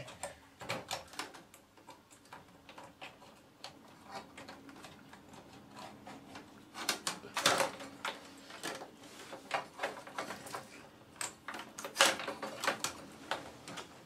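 Hands fitting a power cable onto a hard drive wedged under the metal drive cage of an open computer case: irregular clicks, taps and rustles of plastic connectors and cables, louder in short clusters about seven and twelve seconds in.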